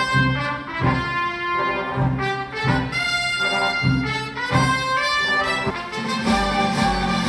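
Live band music with brass horns playing a melody over a steady drum beat; about six seconds in, a heavier bass comes in.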